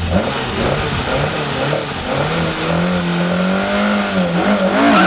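Competition car's engine running hard under acceleration, its pitch dipping and climbing several times.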